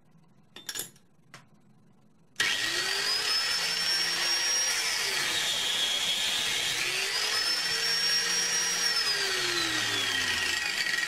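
Homemade chop saw built from a 4.5-inch angle grinder with a 1 mm cut-off disc. After a couple of light knocks, the grinder starts suddenly about two seconds in and runs with a high whine. Twice its pitch sags as the disc cuts into steel, then climbs back.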